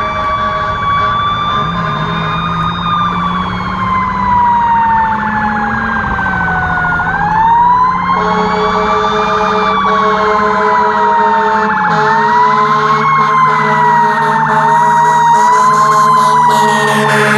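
Fire engine sirens wailing over the truck's engine. The main siren tone falls slowly for several seconds, then winds up again and swings up and down more quickly toward the end. A second, steadier lower tone joins about eight seconds in.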